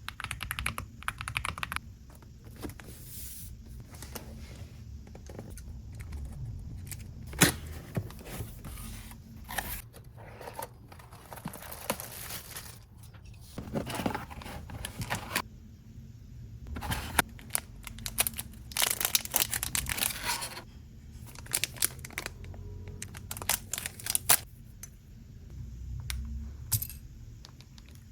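Packaging of an Aula F75 mechanical keyboard being opened and handled: plastic and paper crinkling and tearing in irregular spells, with scattered sharp clicks and knocks.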